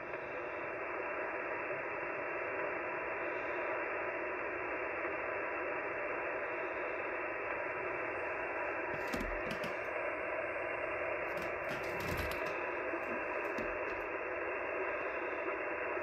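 Icom HF transceiver's receiver giving a steady hiss of band noise as the dial is tuned across the 75-metre band, with no station heard. A few short clicks come around nine and twelve seconds in.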